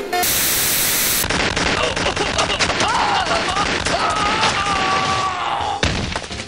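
Rapid automatic gunfire, a dense stream of shots lasting about five seconds after a short hiss of noise, with a wavering pitched sound over it in the second half; it stops about six seconds in.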